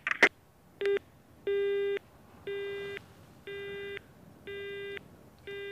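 Two quick clicks as the call is hung up, then a telephone busy tone: a low beep about half a second long, repeating about once a second after a short first blip.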